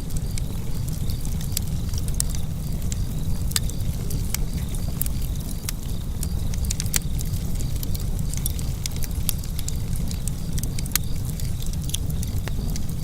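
Wood fire burning in a fireplace: a steady low rumble of flame with frequent sharp crackles and pops scattered irregularly throughout.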